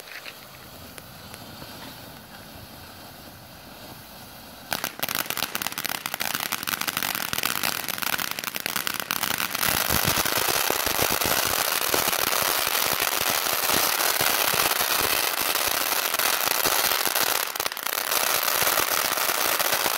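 Coastal Sunset and Joyride ground fountain fireworks spraying sparks, starting as a steady hiss. About five seconds in, a loud, dense crackling sets in and keeps going.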